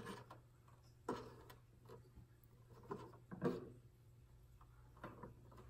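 Soft knocks and light scrapes of plastic landform trays being lifted, slid and set down on a wooden tabletop, a handful of separate taps spread over several seconds.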